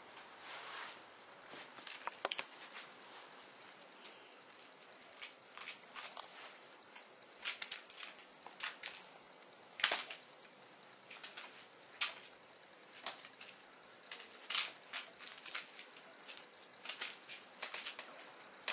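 Norwegian Forest Cat playing with a toy mouse: irregular short scuffs and sharp clicks, in clusters with short gaps, the loudest about halfway through.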